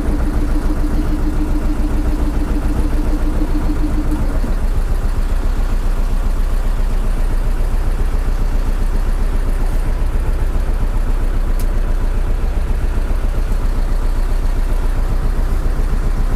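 A fishing boat's engine running steadily, with a fast, even low pulse. A steady hum over it stops about four seconds in.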